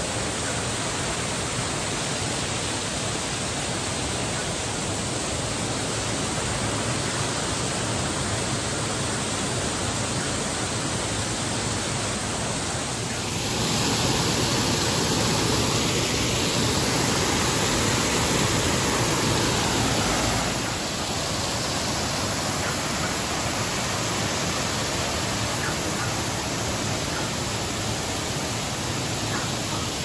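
Man-made waterfall and the stream running below it: a steady rush of falling and flowing water. It grows louder for several seconds in the middle, then settles back.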